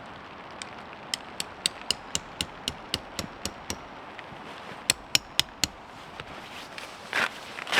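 Tent peg being hammered into the ground: quick sharp strikes, about four a second, a run of about ten, a short pause, then four more, over the steady hiss of light rain. Footsteps in wet leaves start near the end.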